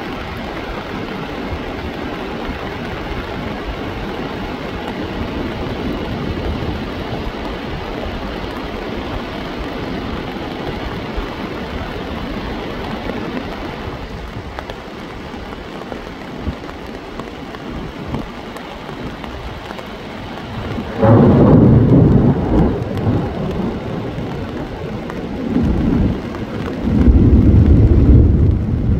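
Steady rushing noise of a muddy flash-flood torrent pouring down a mountain valley. Some twenty seconds in, loud low rumbles come and go three times.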